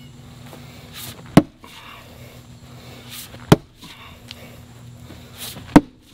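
Splitting maul striking a large, knotty oak round three times, about two seconds apart: sharp, heavy blows of steel on wood.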